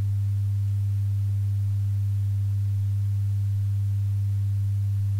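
A steady low-pitched hum: one unchanging tone with fainter overtones above it, holding at a constant level.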